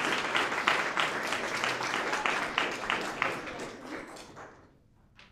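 Audience applauding with dense, rapid clapping that thins out and fades away near the end.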